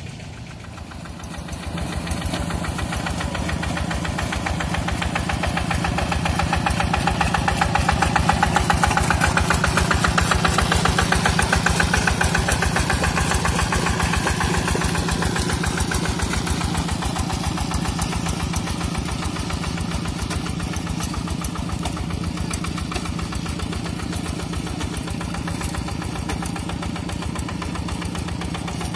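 Quick G3000 Zeva hand tractor's single-cylinder Kubota diesel engine running under load while ploughing a flooded rice paddy, a rapid, even chugging. It grows louder over the first several seconds, then slowly fades.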